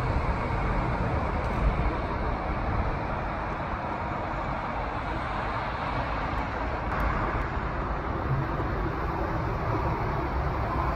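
Steady road traffic noise from passing cars, with a departing tram's rumble fading out in the first couple of seconds.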